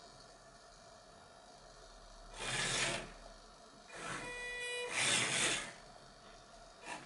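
Small servo motors of a wooden heliodon model, driving the light carriage along its toothed wooden arch. A short grinding whirr comes about two and a half seconds in. About four seconds in a longer run starts with a steady whine and goes into another grinding whirr, and a brief click comes near the end.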